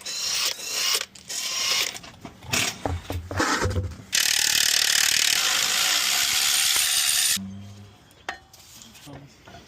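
Tools at work on a wheel hub: about four seconds of irregular ratcheting strokes, then a loud steady noise for about three seconds that cuts off suddenly.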